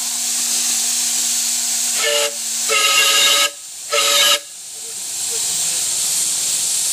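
Miniature 7.5-inch gauge live steam locomotive hissing steadily as steam blows from its smokestack, with the steam whistle sounding a short toot about two seconds in, then two stronger blasts of under a second each around the middle.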